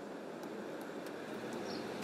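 Steady street ambience of distant city traffic, with a couple of short high chirps from a small bird near the end.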